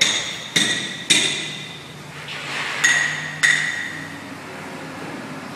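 Hammer blows on metal at a construction site, each strike ringing briefly: three quick blows about half a second apart, then two more after a pause. A faint low hum runs under the later part.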